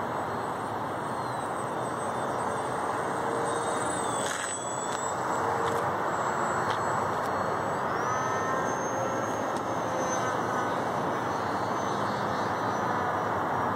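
Steady rushing noise with a faint high whine from the RC foamboard jet's brushless electric motor and propeller, the whine climbing in pitch about eight seconds in as the throttle changes.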